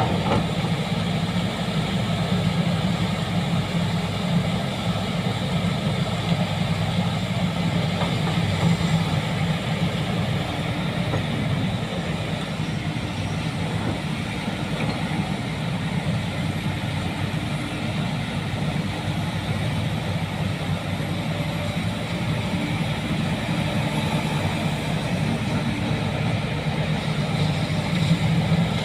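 Heavy diesel earthmoving machinery running steadily, a continuous low engine rumble with no clear revving or pauses.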